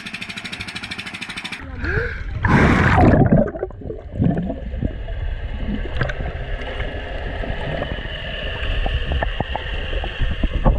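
A small engine runs with a steady, rapid putter above the water; about two seconds in comes a loud splash as the camera plunges under the surface. From then on the sound is muffled underwater: a low rumble with scattered clicks and a faint steady tone.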